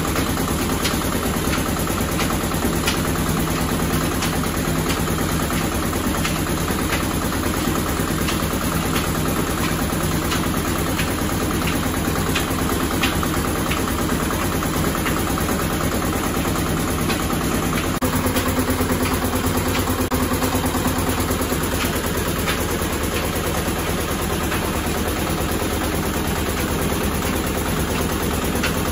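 Screw-type oil expeller press running steadily, a constant mechanical drone from its motor and screw, with scattered sharp clicks as the seed material is pressed.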